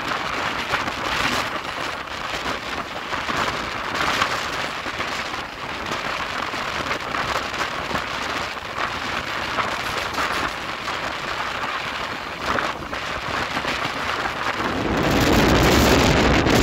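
Running noise of a fast passenger train heard from its open coach door: a steady rushing hiss of wheels on rails and passing air. About fifteen seconds in it grows louder and deeper.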